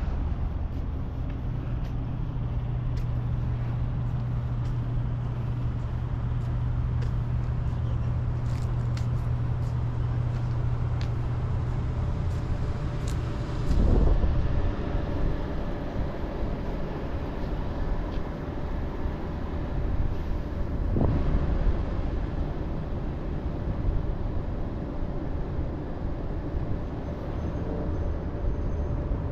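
Steady outdoor background rumble, with a low hum under it for the first half and a brief, louder whoosh about halfway through.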